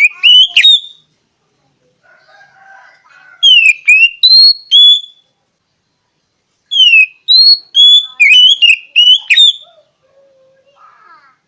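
Oriental magpie-robin (kacer) singing: three bursts of loud, clear whistled phrases with sharp falling slurs, with softer warbling notes in the pauses between them.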